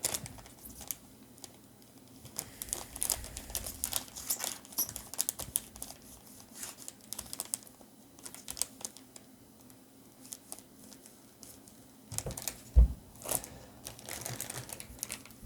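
Foil Pokémon booster pack wrappers crinkling as packs and cards are handled, in quick clicks and rustles, with one loud thump a little under 13 seconds in.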